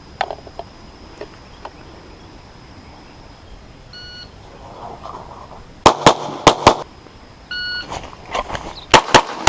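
A short electronic beep, then four quick 9mm shots from a Glock 34 pistol. A second beep follows, then another string of shots near the end.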